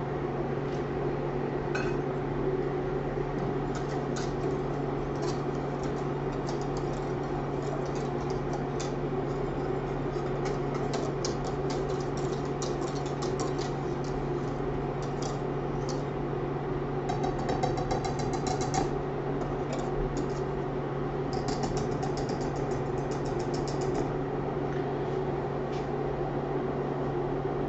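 Wire whisk stirring and clinking against a stainless steel saucepan of dry malt extract wort heating toward the boil, in short runs of light clicks and scrapes over a steady low hum.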